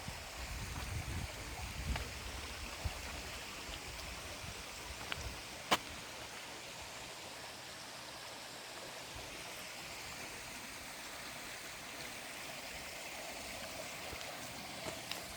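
Water of a stream rushing steadily, with a few sharp clicks, the loudest about six seconds in, and some low rumbling in the first couple of seconds.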